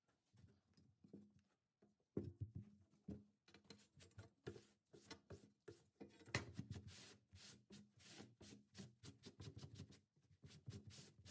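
Cloth rag wiping rust remover off a steel hand saw blade: faint, irregular short rubbing strokes, beginning about two seconds in.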